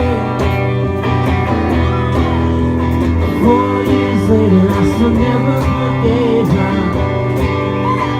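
Live rock band playing: guitars, bass and drums, with a singing voice gliding over the steady accompaniment.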